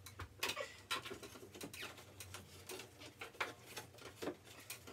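Light, irregular scraping and tapping, several small knocks a second, as a cut strip of sheetrock is handled and pushed up into a gap along the ceiling.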